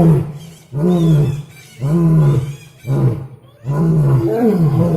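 Lion roaring: a series of deep, pitched grunting calls, about one a second, the last a little longer.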